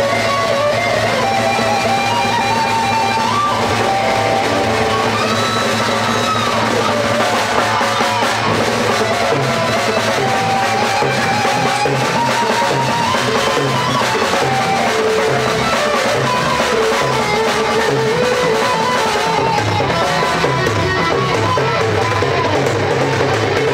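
Live rock band playing an instrumental passage: an electric guitar plays a lead melody with sliding, bending notes over bass guitar and a drum kit.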